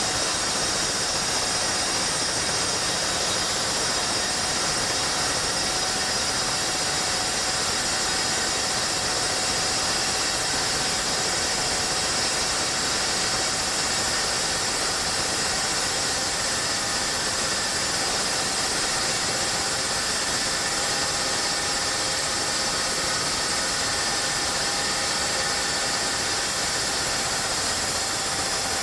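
Evolution chop saw's motor running steadily under load while its stainless steel cold-cut blade slowly cuts through a solid 2-inch square bar of 18/8 stainless steel: a steady whine over a high hiss.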